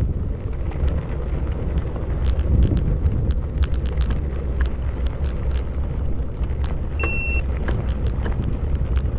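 Steady low rumble of wind on the microphone and tyres rolling over a trail during a bike ride, with many small clicks and rattles. A short, steady high beep sounds about seven seconds in.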